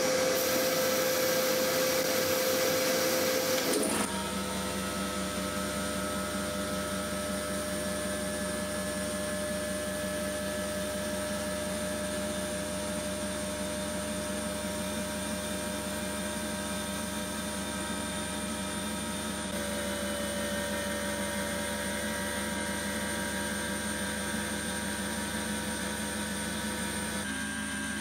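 Abrasive blasting inside a blast cabinet: a steady blast of air and grit hissing against the steel shell of an M16 Stahlhelm, stripping its rust. The blast is louder for the first four seconds, then goes on slightly quieter and steady, with a low machine hum under it.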